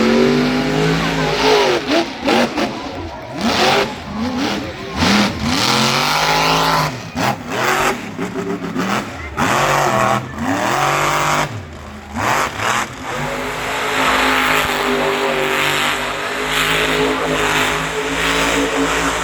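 Monster truck's supercharged V8 engine revving hard in repeated quick bursts, its pitch rising and falling again and again, then running more steadily for the last few seconds.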